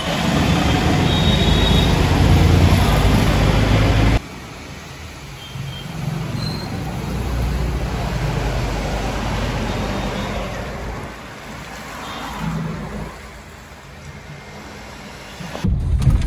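Road traffic noise: cars and motorbikes passing close by on a wet city street, with a steady low engine rumble. It is loud for about the first four seconds, then drops suddenly to a quieter street background.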